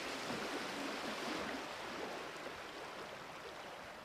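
A steady rushing noise like running water, slowly fading.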